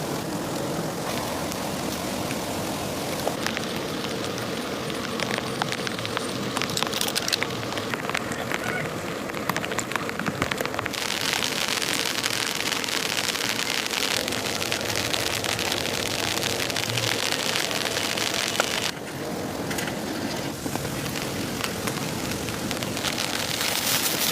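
Rain falling steadily, with many small ticks of drops. It gets heavier about eleven seconds in and eases briefly after about nineteen seconds.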